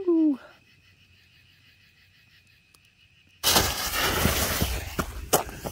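A set of linked consumer firework tubes igniting: after a quiet stretch, a loud hissing rush of sparks starts suddenly about three and a half seconds in and keeps going, with a couple of sharp cracks near the end.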